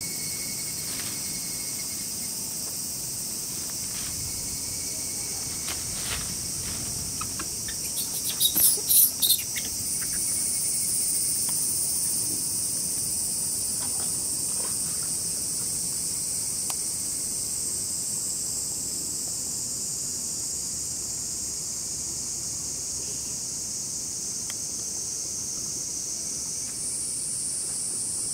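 A steady, high-pitched chorus of summer cicadas in the trees, with one closer insect giving a short run of loud pulsing bursts about eight to nine seconds in.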